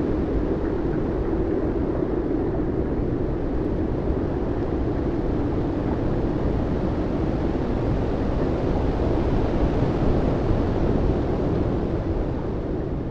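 Steady, loud rumbling noise with a deep low end and no clear tones, holding level and starting to fade near the end.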